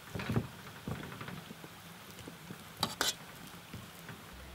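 Spoons mashing and stirring mashed potato in a wooden bowl: soft squashing and scraping, then two sharp clicks of a spoon against the bowl a little under three seconds in.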